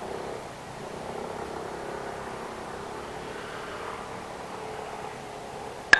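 Steady low background hum, then a single sharp crack of a baseball impact near the end, ringing briefly.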